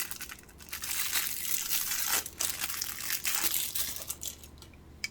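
Paper crinkling and rustling in uneven handfuls as a small folded instruction leaflet is handled and unfolded.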